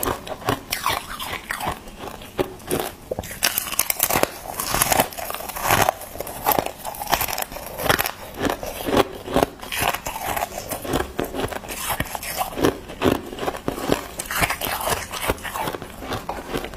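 Thin, frosty crushed ice being broken apart by hand and bitten and chewed: a dense, irregular run of crisp crunches and crackles.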